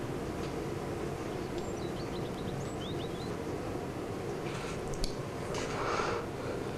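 Quiet room ambience: a steady low background hush, with a few faint high chirps about two to three seconds in and soft rustles of movement near the end.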